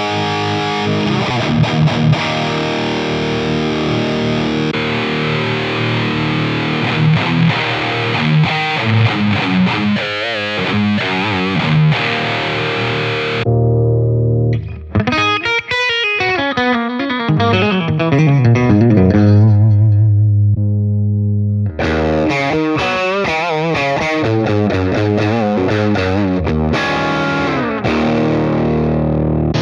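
Electric guitar played through the IK Multimedia TONEX One amp-modelling pedal with distorted amp tones: chords and bent notes. The tone changes abruptly about halfway through and again about three quarters in, as different amp models are selected.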